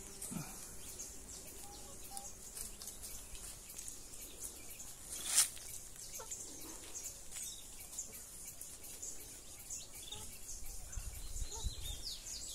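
Faint outdoor ambience with small birds chirping. One louder, sharp high sound stands out about five seconds in, and a low rumble comes near the end.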